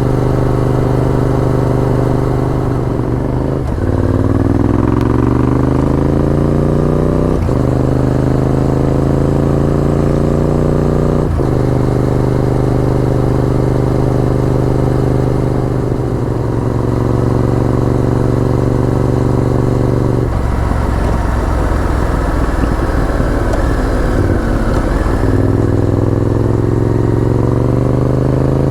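Honda VTR1000F's 90-degree V-twin engine on a moving motorcycle. It pulls up through two gears, the pitch rising and then dropping sharply at each shift. It then holds a steady cruise, goes rough as the throttle eases off for a few seconds, and picks up again near the end.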